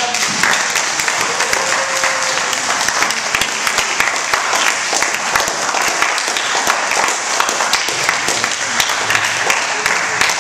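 Audience of schoolchildren applauding: many hands clapping in a dense, steady patter.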